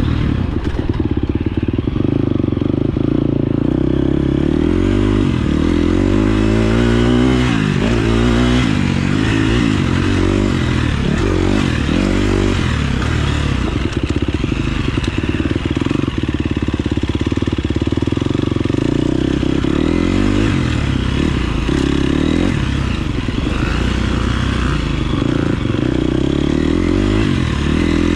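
KTM 350 SX-F's single-cylinder four-stroke engine being ridden hard, its revs rising and falling over and over as the rider opens and closes the throttle.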